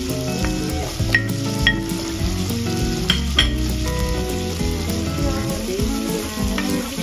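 Chicken, ginger and garlic sizzling and frying in a pot as diced red onion is added and stirred with a wooden spatula, with a few short clinks about a second in and again about three seconds in. Background music plays underneath.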